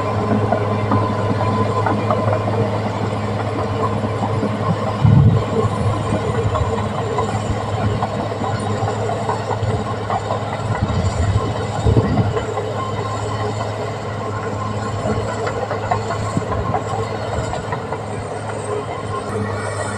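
Caterpillar D6R XL bulldozer working: its diesel engine running steadily under a constant low drone, with the steel tracks clanking continuously and a couple of heavier knocks about five and twelve seconds in.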